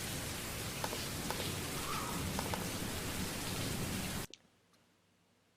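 Recorded rain sound played back by a white-noise app, a steady hiss of rain that cuts off suddenly about four seconds in: the audio file has reached its end because playback is not set to loop.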